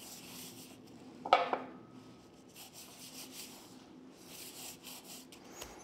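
Hands rubbing dry spice rub into raw pork spare ribs: soft, faint rubbing and patting of meat and seasoning. One brief louder sound a little over a second in.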